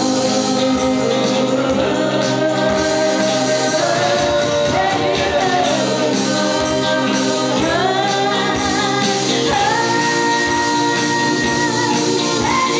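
Small live band playing a pop ballad: guitars and keyboard under sung vocals, with long held notes in the second half.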